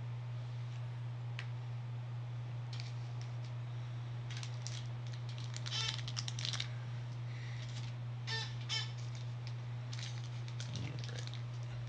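Trading-card packaging crinkling and clicking in several short bouts as it is handled and opened, over a steady low hum.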